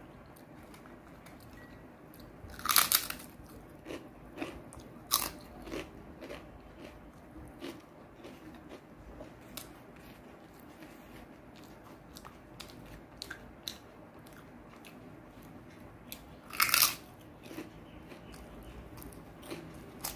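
Close-miked eating by hand: chewing and mouth smacks with small clicks, and two loud crunchy bites, one about three seconds in and one about seventeen seconds in.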